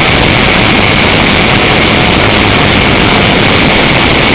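E-max 822 brushless electric motor of a foam RC Cessna 182 model running at high throttle and spinning its 9x5 propeller: a steady high whine over loud rushing noise, picked up at close range by the pen camera mounted on the model's windshield.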